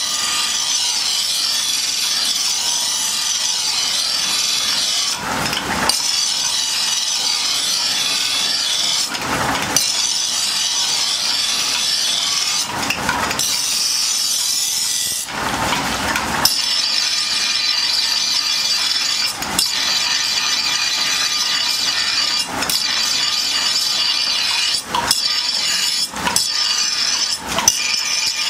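Steel sword blade ground against a spinning grinding wheel: a steady, high-pitched grinding hiss, with a few brief dips.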